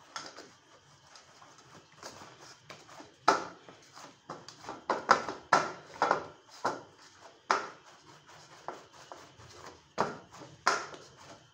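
Wheat-flour roti dough being kneaded and pressed by hand in a steel bowl: irregular soft thumps and slaps, several in quick runs.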